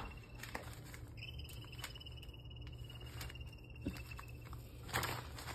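A cricket trilling, a high, even pulsing chirp that breaks off briefly about a second in and then runs on before stopping near the end. Light taps and scuffs come through now and then, one louder near the end.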